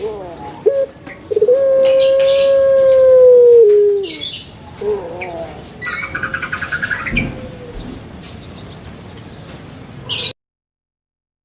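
An animal calling. About a second and a half in, one long call of about two seconds starts, held at a steady pitch, and steps down in pitch at its end. It is followed by shorter, quieter calls and a quick trilled chirp, and then the sound cuts off suddenly near the end.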